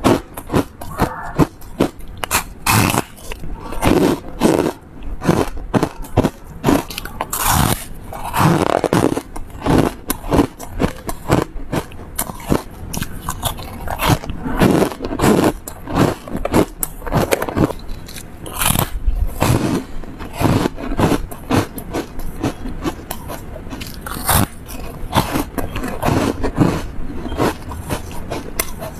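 Yellow foam ice crunched and chewed right at a clip-on microphone: an irregular, unbroken run of sharp crunches, bite after bite.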